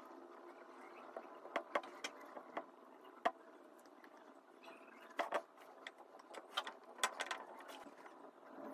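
Scattered small clicks and taps of handling a soldering iron, wires and pliers while soldering a wire onto a battery terminal, over a faint steady hum.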